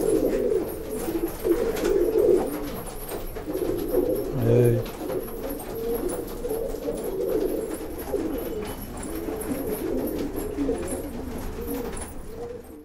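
Rakdher tumbler pigeons in the loft cooing steadily, many overlapping coos blending into a continuous low warbling murmur.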